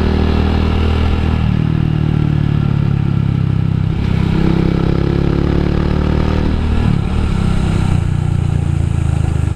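Rusi Classic 250 motorcycle engine running on the move, heard from the rider's seat, its note stepping up and down in pitch a few times. It cuts off abruptly at the end.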